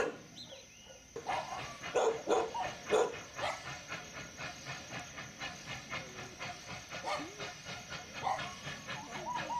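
Steam locomotive working hard with a heavy coal train, chuffing in a steady rhythm of about three beats a second. Dogs bark over it a few times.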